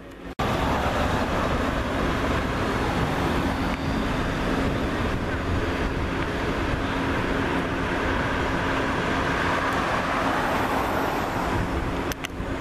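Steady motor-vehicle noise: a vehicle running, with a constant low hum in it, starting abruptly about a third of a second in.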